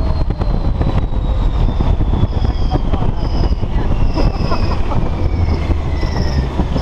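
Wind rushing over the microphone and the rumble of a Test Track ride vehicle speeding around the outdoor high-speed loop, with a whine that falls steadily in pitch as the vehicle slows. From about two seconds in, a short high tone repeats roughly once a second.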